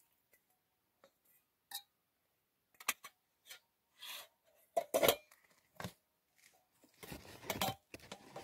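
Small objects being handled and set down by hand: a string of separate light clicks and clinks, with a longer rustle near the end.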